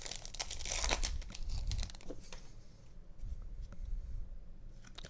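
Foil booster-pack wrapper of Yu-Gi-Oh cards being torn open and crinkled, loudest for about the first two seconds, then fainter rustling with a few light clicks as the cards are handled.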